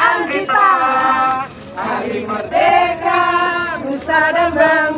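A group of people singing together in unison, in phrases of long held notes with a short break about one and a half seconds in.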